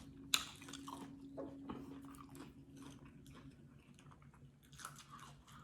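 Close-miked chewing and mouth sounds of someone eating a salad: soft, irregular wet clicks and smacks, with one sharper click about a third of a second in, over a faint steady hum.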